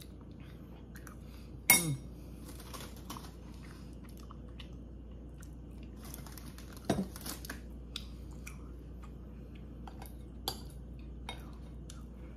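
Close-up eating sounds: chewing cake and ice cream, with a metal spoon clinking and scraping in a glass bowl. Two short louder sounds with a falling pitch come about 2 and 7 seconds in.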